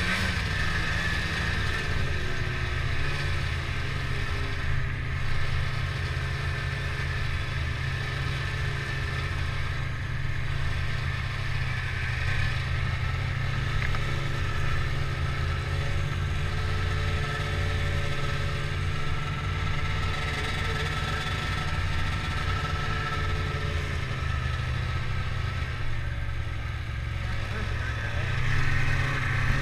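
Ski-Doo snowmobile engine running as the sled is ridden, heard from on board over a heavy steady rumble, a little louder near the end.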